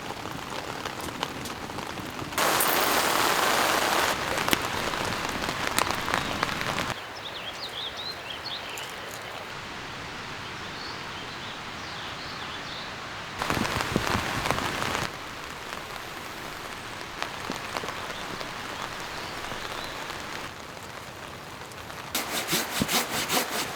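Steady rain falling, its loudness jumping up and down abruptly every few seconds. Near the end, a saw starts cutting wood in quick, even strokes.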